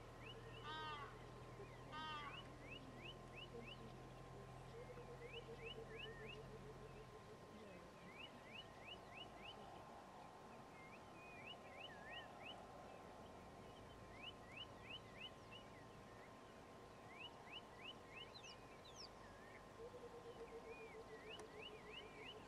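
Faint wild birds calling: repeated little runs of short, high chirps, two quick cascading calls in the first couple of seconds, and a slow falling series of low notes about five seconds in and again near the end. A low steady hum underneath cuts off about seven seconds in.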